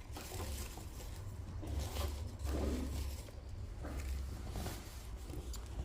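Faint rustling and handling of woven pandanus pieces and other materials on a work surface, in irregular soft bursts over a low steady hum.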